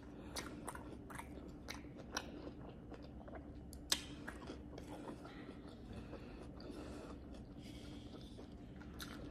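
Close-miked chewing of a homemade Chipotle-style bowl, with soft crunches and small mouth clicks, one sharper click about four seconds in.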